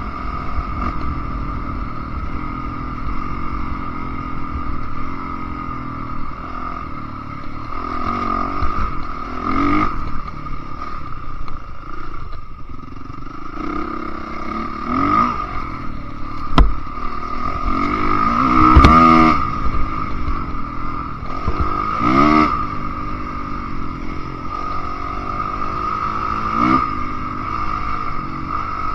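Enduro dirt bike engine running under way, the revs rising sharply several times as it accelerates, loudest a little past the middle. A sharp knock about two-thirds of the way through.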